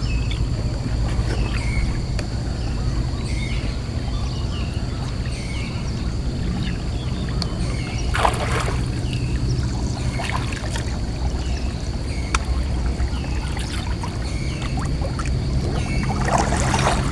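A small boat motor runs steadily at low speed, with water splashing twice, once about halfway through and again near the end, and a bird calling over and over with short chirps.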